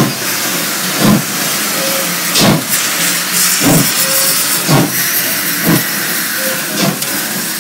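Pere Marquette 1225, a 2-8-4 Berkshire steam locomotive, hissing steam, with a regular thump about once a second over the hiss.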